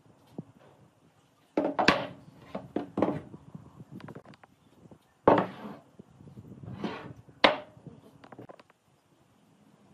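Wooden frame parts knocked and set down on a wooden worktable, with some sliding and scraping: a series of irregular knocks and thuds, the loudest about two seconds in, near five and a half seconds and near seven and a half seconds.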